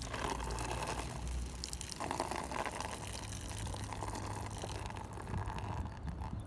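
Water running with a steady splashing hiss, a little stronger from about two seconds in.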